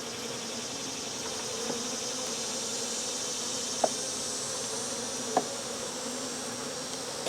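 Honey bees buzzing around an open hive, a steady hum, with two short clicks about four and five and a half seconds in.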